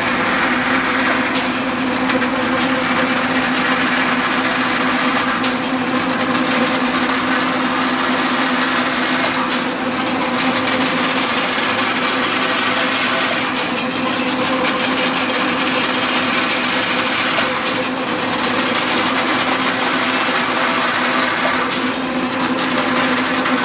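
Automatic steel wire straightening and cutting machine running: the rotating straightener makes a loud, steady mechanical hum with a held tone. A short sharper noise comes about every four seconds as the flying shear cuts each bar to length.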